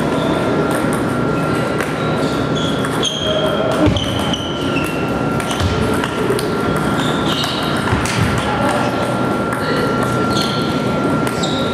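Table tennis balls clicking off bats and tables, with several tables in play at once. A murmur of voices and a thin steady hum sit under the clicks.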